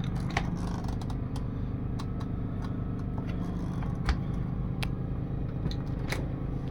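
A steady low machine hum with several even tones, and scattered light clicks and knocks on top of it, one sharper knock about four seconds in.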